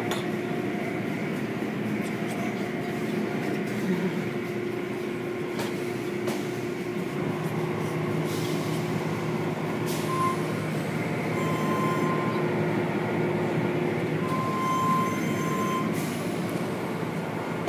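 Automatic car wash tunnel running: wash brushes and cloth curtains swishing over a car amid spraying water, over a steady motor hum. A few short, high-pitched tones come in the second half.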